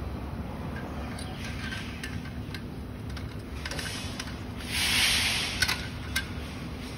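Steel tubes of a swing-chair frame being worked together by hand: a short scraping rub of metal on metal about five seconds in, followed by two sharp metal clicks, over a steady background hum.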